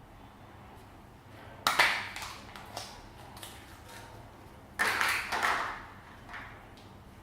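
Slime being pressed and worked by hand, giving two bursts of crackling, popping clicks about three seconds apart.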